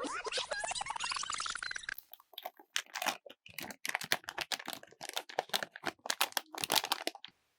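A blind-bag wrapper being torn and handled: a rising, pitched ripping for the first two seconds, then dense irregular crinkling and crackling of the packaging until it stops near the end.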